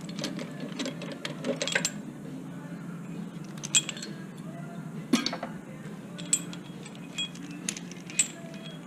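Metal hand tools and tool-kit pieces being handled, giving scattered sharp clinks and clicks over a steady low hum.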